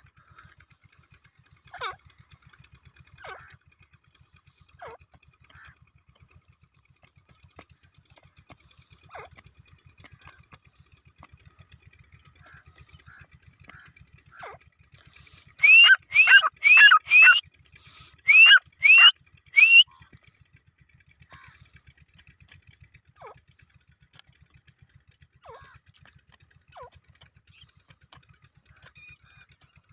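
Grey francolin calling: a loud series of five rising, ringing notes about halfway through, then three more after a short pause, with faint short chirps scattered around them.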